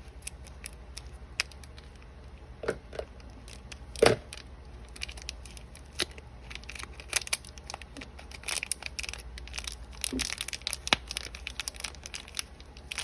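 Small plastic toy packaging being torn open and handled, crinkling and crackling with scattered clicks. There is a loud knock about four seconds in.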